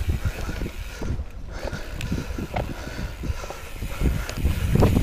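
Mountain bike riding down a rocky trail, heard from a camera mounted on the bike or rider. The tyres rumble and thud over the rock ledges, the bike rattles, and wind buffets the microphone. There is a heavier series of jolts near the end.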